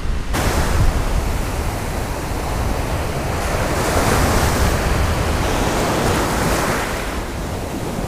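Ocean surf breaking and washing over the shallows, a steady rush that swells louder in the middle, with wind rumbling on the microphone.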